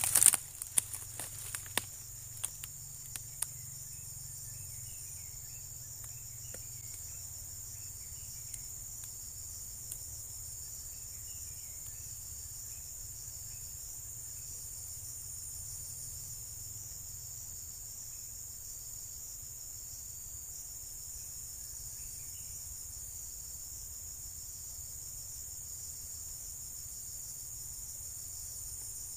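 Insects singing: a steady, high-pitched shrill chorus that holds unchanged. A few sharp clicks and rustles in the first three seconds.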